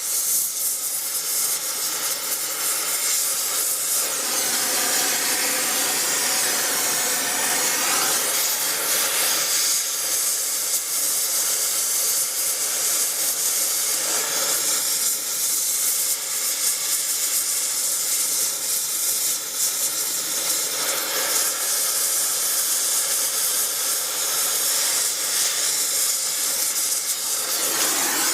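A power tool running continuously on the truck's metal, with a steady hiss and an even whine underneath.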